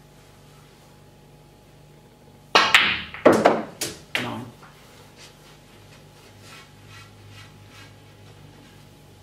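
Snooker balls on a full-size table: a quick run of sharp clicks and knocks over about two seconds, the cue striking the cue ball and the balls colliding as a red is potted, followed by faint light ticks that die away.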